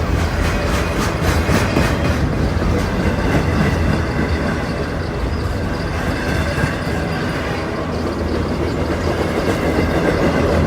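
Norfolk Southern freight train's cars rolling past on the rails, a steady loud rumble of steel wheels on track.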